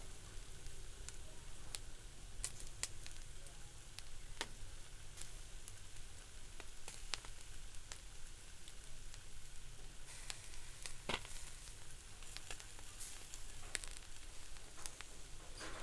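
Fish sizzling on a grill: a steady hiss with frequent sharp crackles and pops of fat. A louder knock comes near the end.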